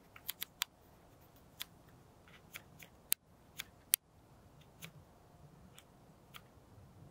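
Sharp little clicks from a camera being adjusted, some in quick runs near the start and single ones spaced out after, the two strongest about three and four seconds in: the aperture being stepped toward a smaller opening.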